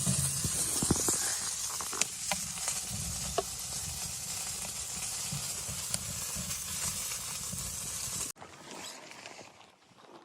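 Steady sizzling hiss with scattered pops and crackles, which cuts off abruptly about eight seconds in, leaving only faint soft sounds.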